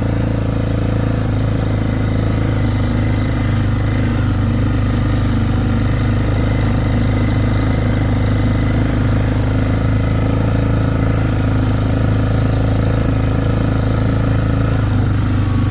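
Four-wheeler (ATV) engine running at a steady pace as it is ridden, a constant low drone.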